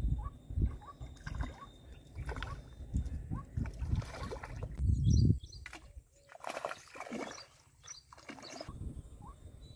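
Water splashing as a hooked fish thrashes at the surface and is pulled out on a fishing rod, loudest about five seconds in.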